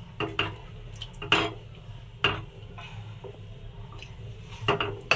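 Wooden spatula stirring thickening custard in a non-stick kadai, knocking and scraping against the pan a few times over a steady low hum.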